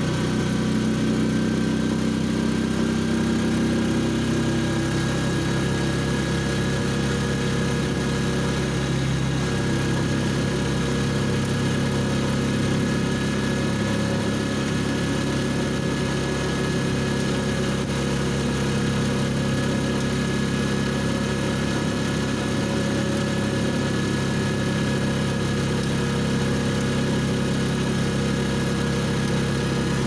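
Vehicle engine running at a steady, unchanging pitch with road noise while driving, heard from inside the cabin.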